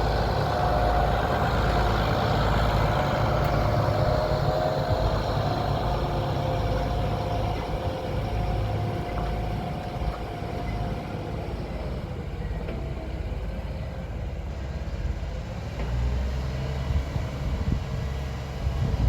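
Farm tractor engine running steadily as it tows a disc harrow in, with a faint whine that drifts slowly lower in the first half.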